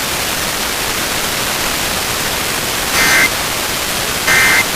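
Radio static hiss, then two short Emergency Alert System data bursts, the end-of-message code, about three seconds in and near the end; they mark the close of the EAS test.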